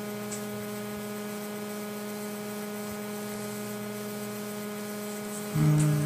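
Steady electrical mains hum with a buzzing stack of overtones and nothing else over it. Near the end a short, louder low tone sounds for about half a second.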